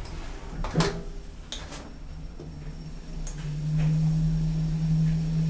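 KONE elevator's sliding car door closing, with a few knocks and clicks, then a click a little after three seconds in as a steady low hum starts up and grows louder: the lift's drive starting the car moving.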